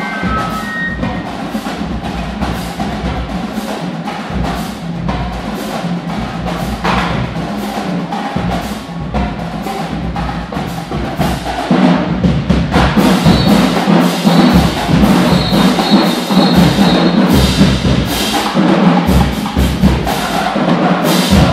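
College marching band playing: a steady, driving drum beat under brass, the whole band getting louder about halfway through, then stopping sharply at the end.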